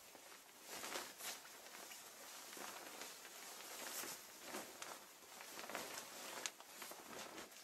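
Faint, uneven rustling and crinkling of shiny synthetic clothing fabric, with several sharper crinkles scattered through it.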